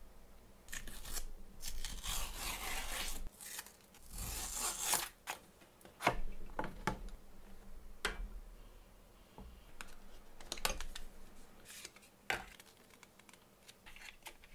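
Nothing Phone (2) cardboard box being unboxed by hand. A tearing, rasping rustle of the packaging comes in two stretches in the first five seconds, then scattered sharp clicks and taps as the lid, tray and paper insert are handled.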